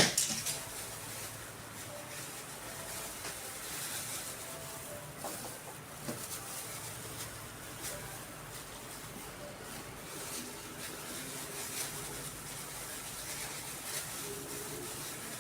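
Faint rustling of hair and soft brush strokes as hair dye cream is worked into the hair, over a low steady hiss. A sharp click comes right at the start.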